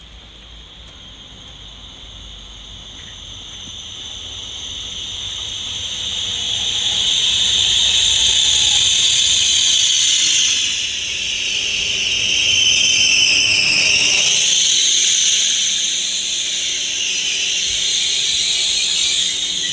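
Trenord electric train pulling into the platform, its brakes giving a steady high-pitched squeal that grows louder over the first several seconds and wavers in pitch about two-thirds of the way through. There is a low rumble of the train underneath.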